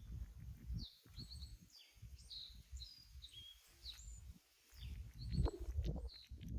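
Small birds chirping: a run of short, quick, high notes, some sliding up and some down, repeated every half second or so over a low rumbling background.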